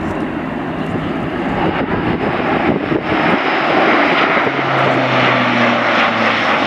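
Airbus A400M's four Europrop TP400-D6 turboprop engines and eight-bladed propellers droning as the transport passes overhead, growing louder as it comes nearer. A steady low propeller hum comes in about two-thirds of the way through.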